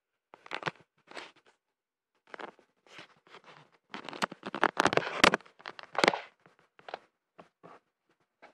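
Handling noise: a phone's microphone rubbing and scraping against fabric and hands as it is moved about, in irregular bursts. It is densest a little past the middle, with two sharp knocks.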